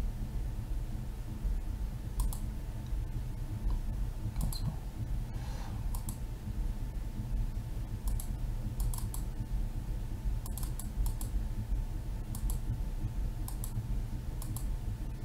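Scattered clicks of computer keys, single or in quick pairs, every second or two, over a steady low hum.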